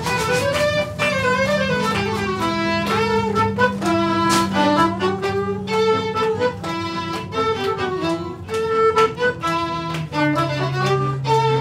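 Violin playing a melody over a held low note that drops to a lower pitch about ten seconds in.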